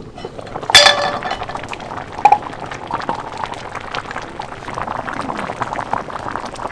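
Pot of taro leaves and red lentils bubbling at the boil, a dense crackling simmer. A loud ringing metal clink about a second in and a sharper clink a little after two seconds.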